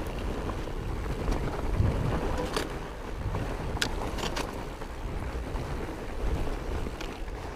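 Fat bike descending a trail: wind rushing over the action-camera microphone over the rumble of the wide tyres rolling, with a few sharp ticks and knocks from the bike.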